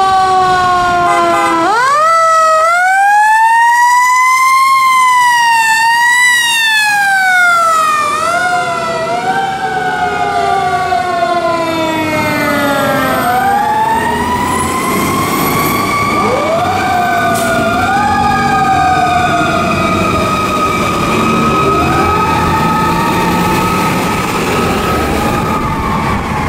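Fire truck sirens as two fire apparatus respond. One siren sweeps up and down about every second and a half, then falls away. Another winds slowly up to a long, steady high pitch while shorter up-and-down sweeps continue over it, with the rumble of the trucks' engines underneath.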